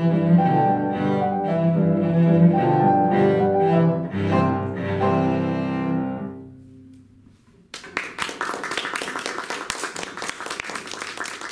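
Cello and piano playing the closing notes of a piece, fading out about six and a half seconds in. After a second or so of quiet, an audience starts applauding.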